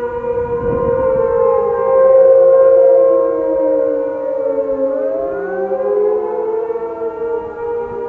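Several electromechanical outdoor warning sirens sounding together in the attack signal of a weekly fire-siren test, their tones rising and falling out of step with each other. About five seconds in, one siren dips low and then climbs back up while others hold their pitch.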